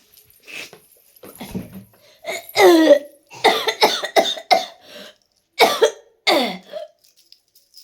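A person coughing from a cold: a string of harsh coughs in quick runs, the loudest in the middle, some ending in a voiced tail that falls in pitch.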